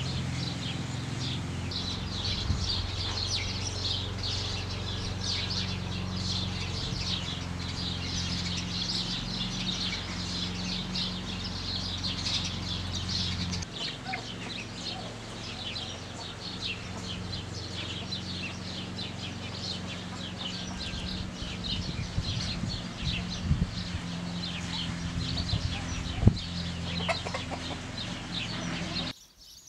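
Domestic hens clucking over dense, continuous chirping of small birds, with a low steady hum underneath; it all drops away suddenly near the end.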